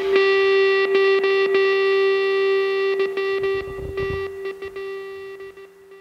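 Background rock music ending on a held, distorted electric guitar note that slowly fades out.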